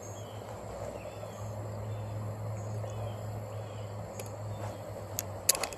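Outdoor ambience by the water: a steady low rush and hum with faint, short bird chirps, and a few light clicks near the end.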